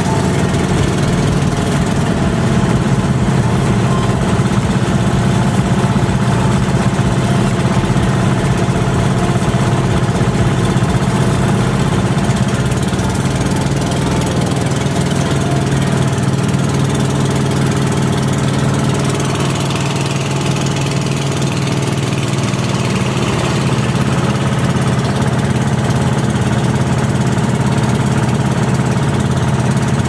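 An engine running steadily, a loud low drone that holds one pitch throughout.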